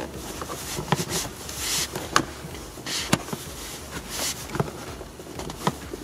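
A hooked metal pry tool working under a plastic lower trim panel at a retaining clip. Scattered light clicks and scrapes, with rustling handling noise between them.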